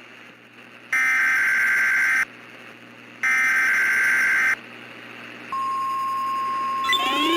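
Emergency Alert System SAME header: two buzzy, screeching data bursts, each about a second and a half long and a second apart. About five and a half seconds in, the steady 1050 Hz NOAA Weather Radio warning alarm tone starts, and a rising siren-like tone joins it near the end. The sequence signals that a new warning, here a tornado warning, is about to be broadcast.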